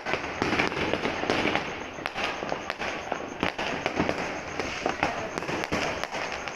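Fireworks and firecrackers going off all around in a dense, continuous barrage of overlapping bangs and crackles.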